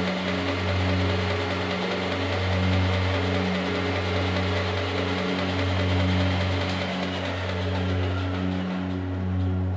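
A milling machine's spindle runs steadily, turning a wiggler edge finder, over slow ambient background music with long sustained low notes. The machine noise stops just before the end.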